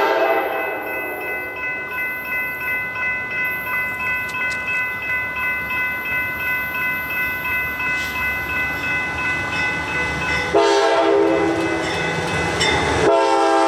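Locomotive air horn blasts: a horn chord cuts off just after the start, then a steady ringing tone pulsing about twice a second runs over the rumble of the train. Near the end the horn sounds again in two long blasts, the first over a heavy low rumble.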